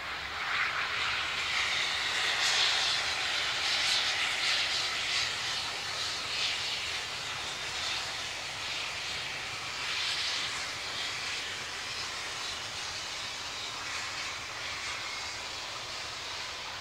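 Steam locomotive hauling a train past, its exhaust and steam hiss swelling a couple of seconds in and then slowly easing as it draws away.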